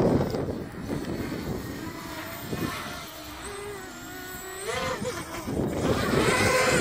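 Motors and propellers of a 250-size racing quadcopter whining in flight, the pitch sweeping up and down as the throttle changes, growing louder toward the end. A rushing noise is the loudest sound at the start.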